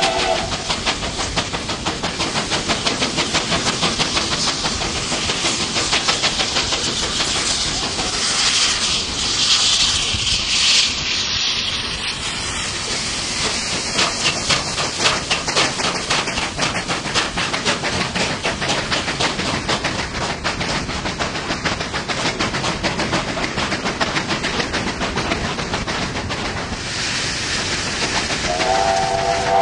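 Steam locomotives working hard side by side: a rapid, steady beat of exhaust chuffs with loud steam hiss. A multi-note steam whistle chord sounds briefly at the very start and again near the end.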